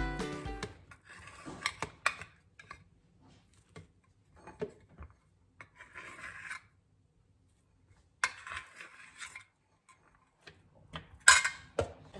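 Steel spoon scraping and clinking against a stainless steel idli plate as steamed idlis are prised out of the moulds, in short, scattered scrapes and clicks, with a sharper clank near the end.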